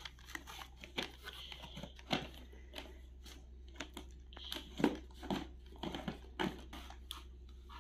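Scattered light clicks, knocks and rustles of hands handling a plastic toy remote-control car and cardboard toy packaging.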